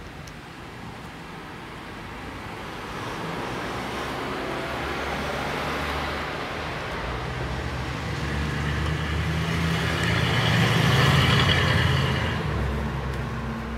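A motor vehicle passing, its engine and road noise building slowly to a peak about eleven seconds in and then fading, over a steady background of traffic.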